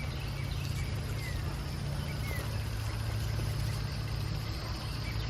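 Steady low hum of an engine running at a constant speed, with a few faint high chirps over it.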